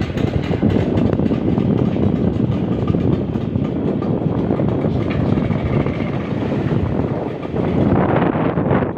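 Speedboat with four 40 hp outboard motors running steadily under way, a loud, continuous drone.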